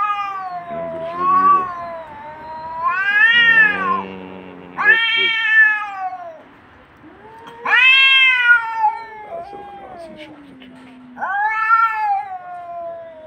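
Two male cats in a territorial standoff, a tabby and a black-and-white, trading long drawn-out yowls that rise and fall in pitch, about five loud ones in turn. A lower, quieter wavering yowl runs through the middle, and a low growl comes about four seconds in.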